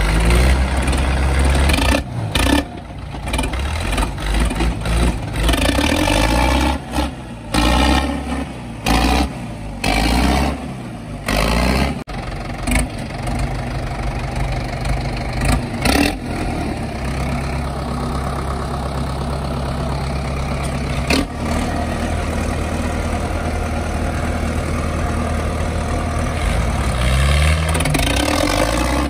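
Modified diesel tractor engine revved again and again in short bursts, then held at a steady raised speed, with another rev near the end that sends up black exhaust smoke.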